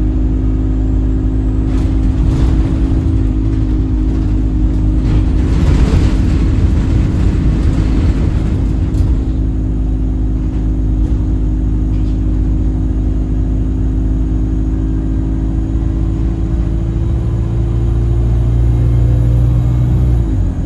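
Alexander Dennis Enviro 200 bus running, with a steady droning, horn-like tone over the low rumble. The uploader suspects the tone comes from the gearbox. A rushing noise swells and fades in the first half, and the tone's pitch drops right at the end.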